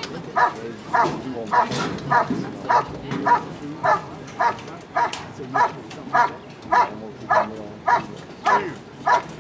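German shepherd's steady, rhythmic barking, about two barks a second, as it holds and barks at the helper in the blind during the Schutzhund protection phase.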